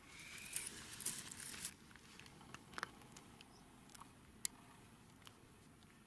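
Faint rustling and crackling of dry grass and leaf litter for about the first two seconds, then a few scattered faint ticks.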